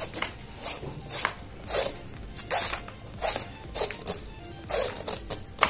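Small kitchen knife scraping the green skin off a raw bottle gourd in short, irregular strokes, about one every half to one second.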